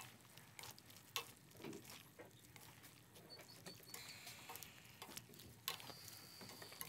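Mostly near silence, with a few faint clicks and scrapes of a spatula stirring pork belly and vegetables in a wok.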